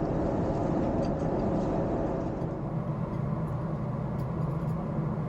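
Steady airliner cabin noise of a Boeing 777-200ER in cruise: an even rushing roar with a low drone underneath.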